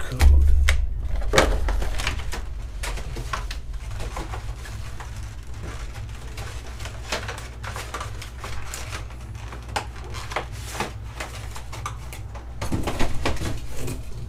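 Handling noise of trading-card packs and clear plastic blister packaging: scattered clicks and rustles, with a low thump just after the start and another near the end.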